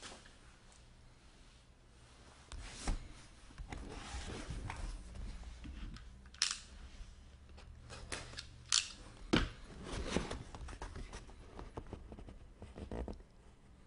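Cardboard box and its packaging being handled and opened: rustling and scraping with several sharp clicks and snaps.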